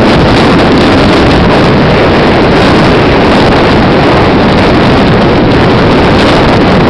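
Loud, steady rushing noise of a car on the move, wind on the microphone mixed with road noise, with no clear engine tone standing out.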